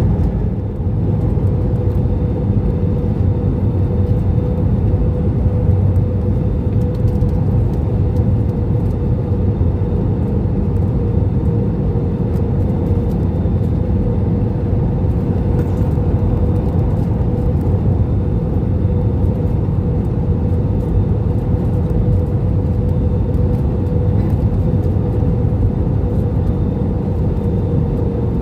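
Jet airliner cabin noise on approach: a steady low rumble of engine and airflow with a faint constant hum, unchanging throughout.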